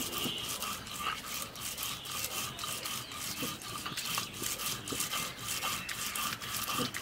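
Stone roller (nora) rubbed back and forth on a flat grinding stone (shil), grinding salt-soaked raw maan kochu (giant taro) into a wet paste: a quick, even, rhythmic scraping of stone on stone.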